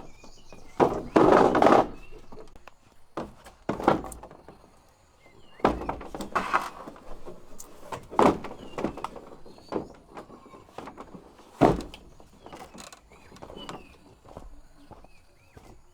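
Irregular knocks and thuds, some of them short rattling or scraping handling noises. Small birds chirp faintly throughout.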